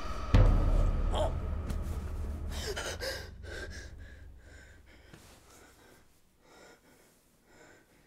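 A woman gasps as she wakes with a start, over a sudden deep boom that fades away over several seconds. Her breathing then settles into fainter breaths about a second apart.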